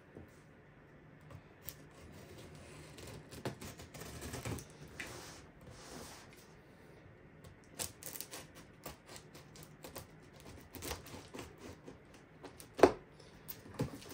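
Hands handling and turning a large taped cardboard shipping box: scattered light taps, scrapes and rustles of cardboard, with one sharp knock a little before the end.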